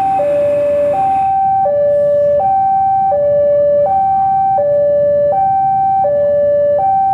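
Railway level-crossing alarm sounding its electronic two-tone warning, a higher and a lower note alternating about every 0.7 seconds, with a rush of noise in the first second.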